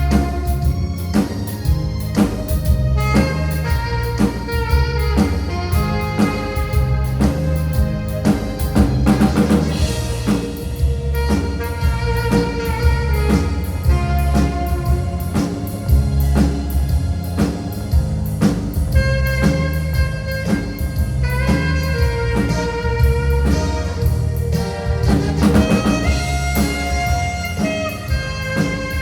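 Live instrumental band: an alto saxophone plays the melody of a Korean pop song over keyboard, with a drum kit keeping a steady beat.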